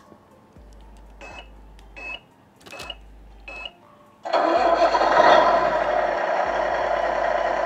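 The Tamiya Grand Hauler RC truck's multi-function sound unit is switched on with a click and gives four short beeps. About four seconds in, its simulated truck engine starts and then idles loudly and steadily through the model's speaker.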